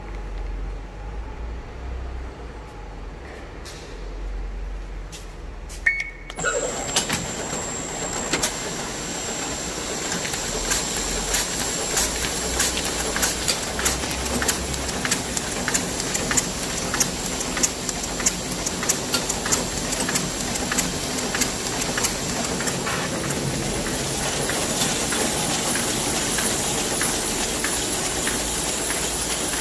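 Grampus 66 offset printing press starting up about six seconds in, then running with a steady mechanical clatter, a high whine and regular sharp clicks about twice a second as it cycles.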